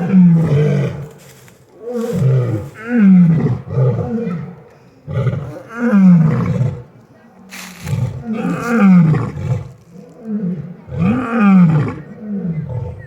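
Lions roaring in a bout: a string of loud, deep calls, each falling in pitch, coming one every second or two.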